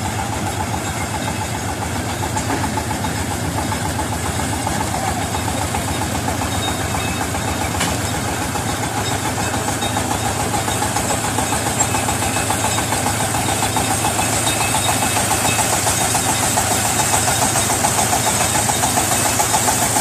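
Mini tracked combine harvester's engine running steadily with a rapid, even beat as the machine drives down the loading ramps off a truck, getting slightly louder toward the end.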